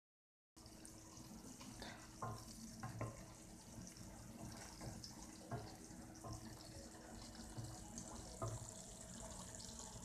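Sugar and glucose syrup boiling in a stainless steel saucepan, a faint steady bubbling hiss, with scattered light taps and scrapes of a wooden spatula stirring it. The syrup is being boiled down to thicken for hard candy. It starts after a brief gap of silence.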